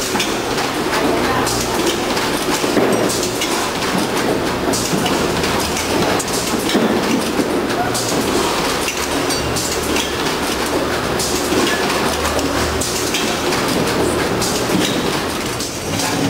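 Packing-line machinery running, a Newtec 3009XL weigher and Ag-Pak Tiltousel rotary bagger: a steady, loud clatter full of quick clicks and knocks over a low hum.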